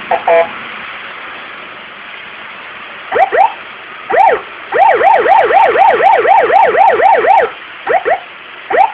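Electronic six-tone police siren module sounding through a loudspeaker. It gives a short double beep, then short upward sweeps, then a fast rise-and-fall yelp at about four cycles a second for nearly three seconds, then two more short sweeps.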